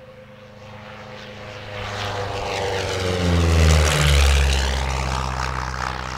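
Van's RV-7 single-engine propeller plane flying low past. The engine and propeller drone grows steadily louder, drops in pitch as the plane passes about four seconds in, then fades away.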